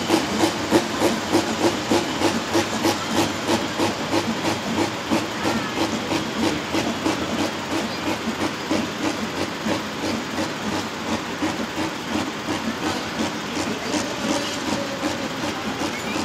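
Pulling tractor's diesel engine running at low revs with a heavy, rhythmic chugging exhaust, about three beats a second, the beats growing less sharp after the first few seconds.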